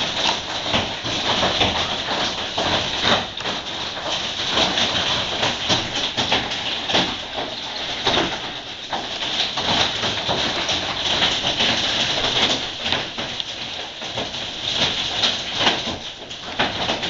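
Hailstones pelting down in a heavy hailstorm: a dense, unbroken clatter of countless small impacts over a hiss of falling ice and rain.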